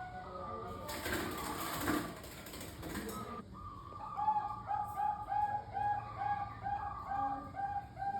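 Perkutut Bangkok zebra doves cooing in short repeated notes. About a second in, a loud rushing noise runs for about two seconds. From about four seconds in, the coos fall into an even run of notes at about two and a half a second.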